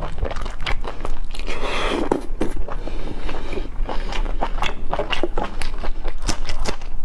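Close-miked biting and chewing of meat, a dense run of sharp, irregular mouth clicks and smacks.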